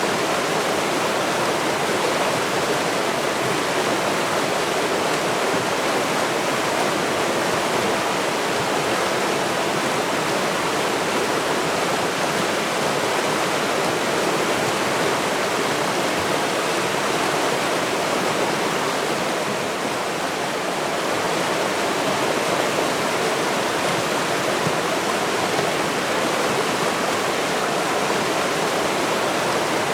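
River water running in a steady, even rush, with a slight dip in loudness about twenty seconds in.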